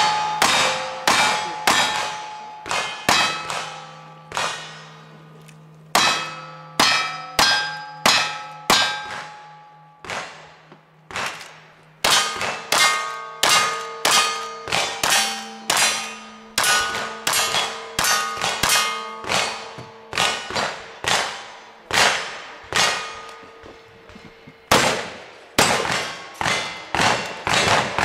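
Rapid gunshots from a revolver and then a lever-action rifle, each hit followed by steel targets clanging and ringing on with held tones. The shots come in two quick strings with a short break near the middle while the shooter changes guns.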